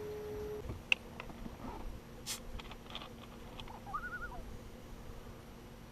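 A steady hum that steps down to a lower pitch about half a second in, with scattered sharp clicks and knocks in the boat. A short warbling bird call sounds about four seconds in.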